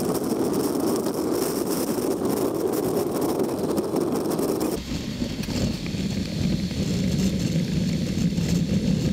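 Wind and road noise of a Zero SR electric motorcycle ridden at highway speed, wind buffeting the microphone. About five seconds in the noise turns deeper.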